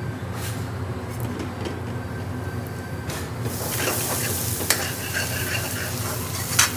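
Diced onions frying in oil in an aluminium pan, the sizzle growing louder from about halfway as they are stirred with a metal spatula, which knocks sharply on the pan twice; the onions are caramelizing too much. A steady low hum runs underneath.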